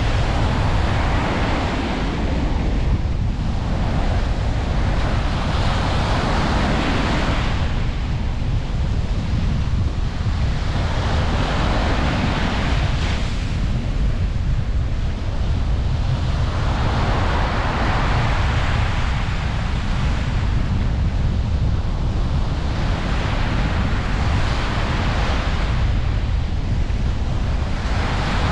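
Ocean waves breaking on a beach, each surge swelling and washing back about every five to six seconds, over a steady low rumble of wind on the microphone.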